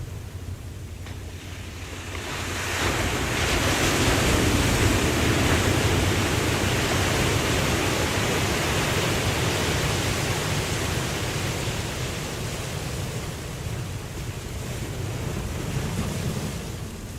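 Ocean surf: a low rumble, then a wave swells into a loud wash about two and a half seconds in and slowly dies away.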